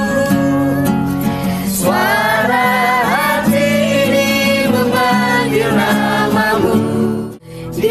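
A man singing a pop ballad unamplified, without a microphone, accompanying himself on an acoustic guitar. The sound drops out briefly near the end.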